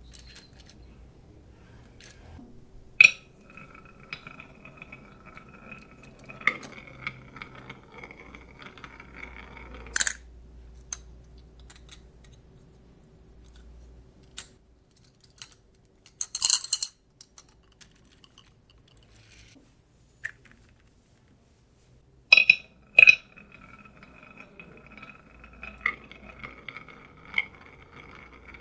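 Marbles clacking onto a marble run track and rolling down it, a steady ringing roll that lasts several seconds, twice, with scattered sharp clicks of marbles striking in between.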